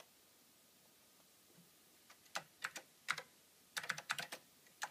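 Typing on the Apple IIc's built-in keyboard: quiet for about two seconds, then quick runs of key clicks as a line of text is typed.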